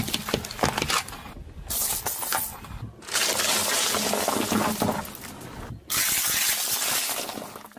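A car tyre rolling over and crushing small hard objects, heard as short separate takes. First come sharp cracks and snaps from a bundled stack of coloured pencils. Then comes a dense crackling rattle as cups of hard-shelled candies burst and the candies scatter across pavement.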